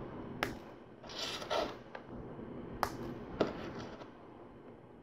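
Small plastic LEGO tread links clicking as they are snapped together by hand: a few sharp clicks, with a brief rustle of handled plastic pieces between them.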